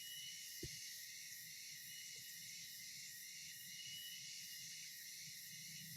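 Faint, steady chorus of insects with a thin high tone running through it, and a single soft knock a little over half a second in.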